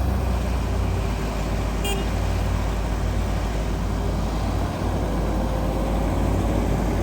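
Heavy diesel machinery running steadily at a concrete slab pour, a low engine rumble, with a short high beep about two seconds in. An engine's pitch begins to climb slowly about five seconds in.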